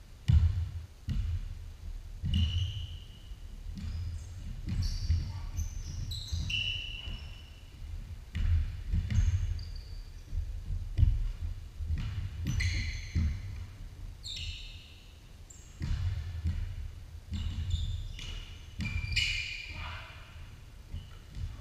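Basketball dribbled and bouncing on a hardwood gym floor, with irregular thuds and footfalls and many short, high sneaker squeaks, echoing in a large hall.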